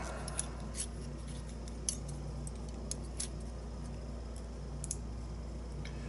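Scattered light metallic clicks of small steel tools handling and tapping a brass pin-tumbler lock cylinder as it is taken apart, over a faint steady low hum.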